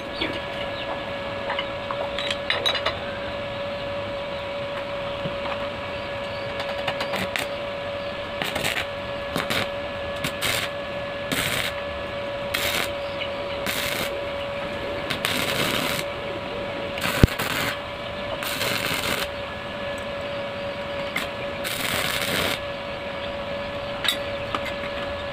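Stick (arc) welding on steel: the arc crackles and sizzles in short spells, stopping and restarting several times, over a steady hum. There is one sharp click about two thirds of the way through.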